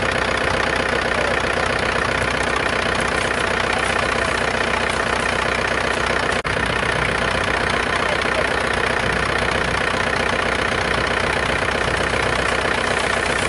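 An engine running steadily at idle, unbroken except for a brief dropout about six seconds in.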